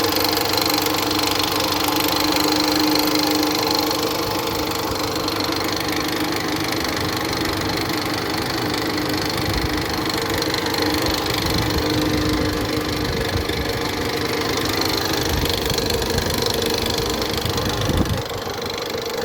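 Toyota RAV4's 2.4-litre four-cylinder engine running steadily at idle with a knock, which the owner places in the timing chain area. The sound shifts briefly near the end.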